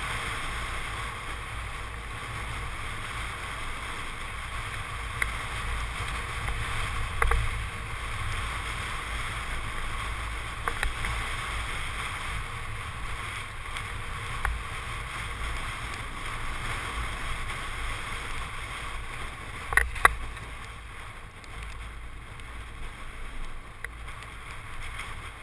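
Steady rush of wind on a helmet camera's microphone and mountain-bike tyres rolling downhill on a paved lane. A few sharp clicks and knocks from the bike break through, two loud ones about twenty seconds in.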